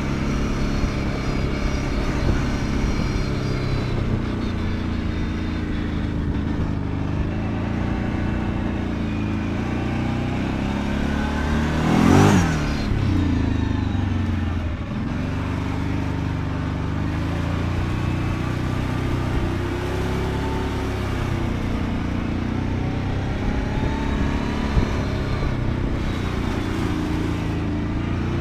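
Kawasaki Brute Force 750 ATV's V-twin engine running under way, its pitch rising and falling with the throttle. About twelve seconds in it gets briefly much louder, with a quick sweep in pitch.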